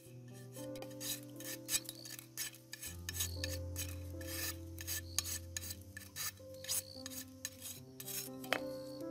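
A knife shaving bamboo into thin strips, making quick, uneven scraping strokes about three times a second, over soft background music.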